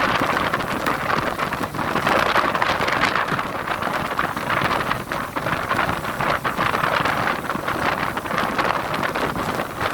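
Rough sea: a steady rush of waves and surf, with wind buffeting the microphone.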